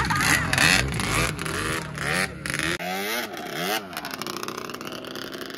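Motorcycle engine revving, its pitch rising and falling several times in quick swings.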